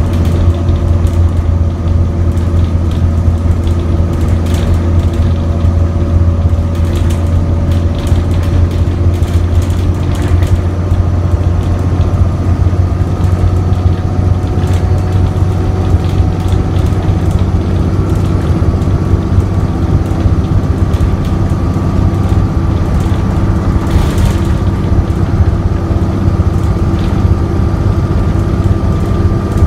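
Inside an ADL Enviro 400 double-decker bus with a ZF Ecomat automatic gearbox, under way while stuck in limp mode: a loud, steady low engine drone, a thin whine that slowly rises in pitch, and frequent clicks and rattles from the bus interior.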